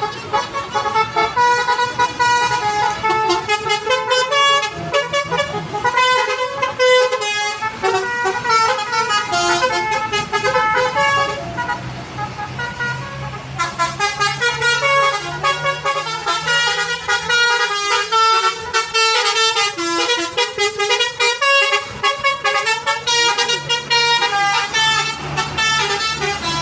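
Telolet bus horn: a bus's multi-tone musical horn playing quick runs of short, changing notes one after another. The tune eases off briefly about twelve seconds in, then starts up again.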